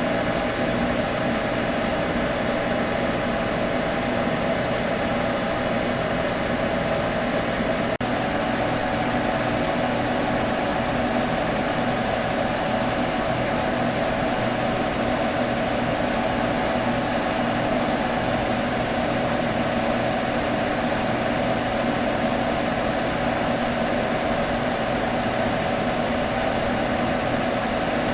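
Computer humming steadily: an even, unchanging hum with a steady mid-pitched tone over a soft hiss.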